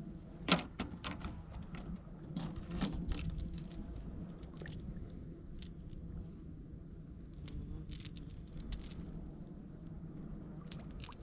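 Irregular small clicks and knocks, a cluster in the first few seconds with the loudest about half a second in, then sparser ones, over a low steady hum.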